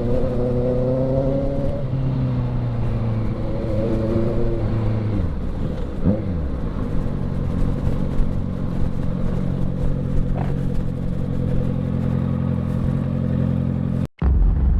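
Motorcycle engine idling through an aftermarket exhaust, held slightly above idle at first, with one quick throttle blip about six seconds in. After that it settles to a steady idle. Near the end the sound cuts out for a moment and returns as a louder low rumble.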